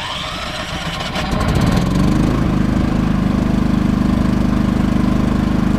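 Champion 3100-watt inverter generator's gasoline engine catching on a remote-triggered, auto-choked start after months of sitting unused. It speeds up from about a second in and settles into a steady run after about two and a half seconds.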